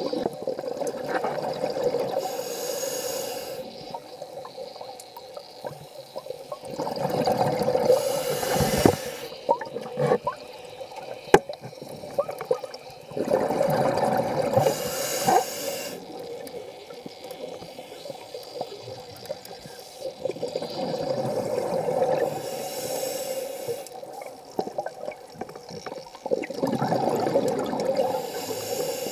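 Scuba diver breathing through a regulator underwater: exhaled bubbles gurgle out in bursts of two to three seconds about every six to seven seconds, with quieter hissing between breaths. A single sharp click about eleven seconds in.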